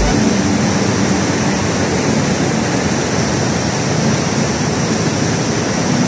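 Steady rush of a swollen river pouring over low cascades and rapids.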